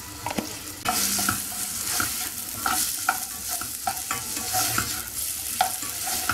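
Chopped onion frying in olive oil in a nonstick pot, sizzling as it is sautéed to soften, while a spatula stirs it in quick, repeated scraping strokes against the pan. The sizzle grows louder about a second in, when the stirring starts.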